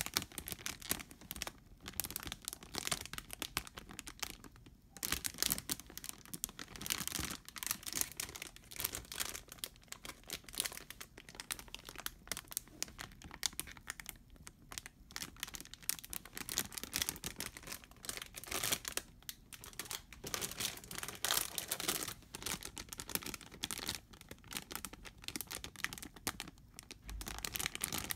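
Thin clear plastic bags holding plastic model-kit runners crinkling and rustling as they are handled, a dense irregular crackle with only brief pauses.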